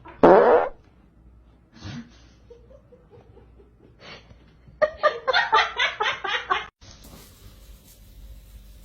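A person laughing in quick rapid bursts for about two seconds, after a short loud sound near the start that drops in pitch.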